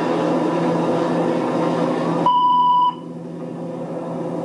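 Police dispatch radio channel open with a steady hiss and hum, then a single high alert-tone beep of about half a second, after which the hum drops away to a quieter hiss.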